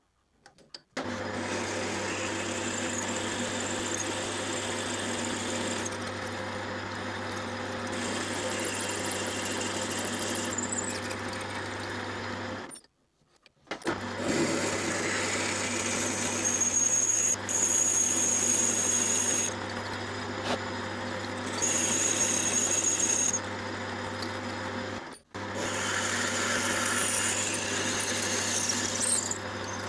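Metal lathe running while a letter Q twist drill bores a deep hole into the bar stock: a steady motor hum under a cutting hiss that swells and eases, with a thin high squeal at times. The sound drops out to near silence briefly three times.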